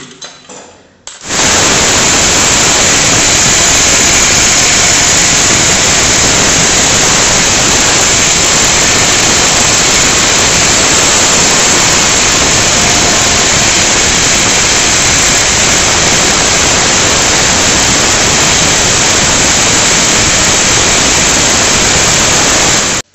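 Electric angle grinder with a cutting disc, cutting into a stone countertop: a loud, harsh, steady grinding noise that starts about a second in and stops suddenly near the end. The cut is trimming the corners of the countertop opening so that a sink bowl will fit.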